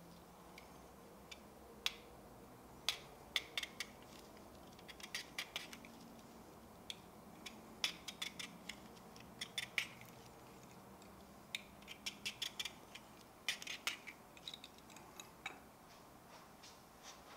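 Y-shaped vegetable peeler shaving strips of rind off a lemon: short scrapes and clicks coming in irregular quick clusters.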